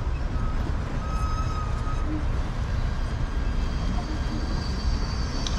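City street ambience: a steady low rumble with a faint general hubbub, a thin high whine about a second in, and a light click near the end.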